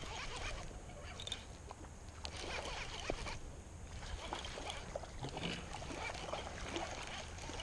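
Baitcasting reel cranked fast, reeling in a hooked bass: irregular whirring and clicking of the reel, with sleeve and handling rustle close to the microphone.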